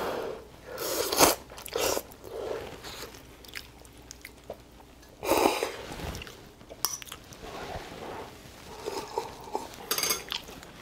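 A person slurping and chewing a mouthful of hot instant ramyeon noodles in broth, with loud noisy slurps about a second in and again around five seconds, and a few light clicks near the end.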